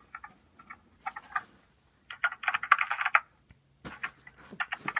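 Quick plastic clicks from handling the new gaming laptop, like keys being pressed. They come in short clusters, with the busiest run about two to three seconds in.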